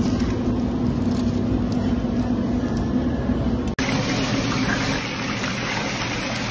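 A steady low mechanical hum. About four seconds in it gives way to an even, hissing sizzle of deep-fryer oil bubbling around baskets of fries.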